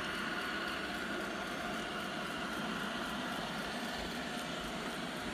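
Robot vacuum cleaner running across a hard terrazzo floor: a steady motor whir with a faint high-pitched whine.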